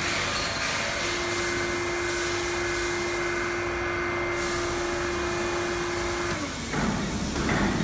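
Automatic HVAC duct production line running: a steady motor whine that dips and cuts off about six seconds in, then a short rough burst of machine noise.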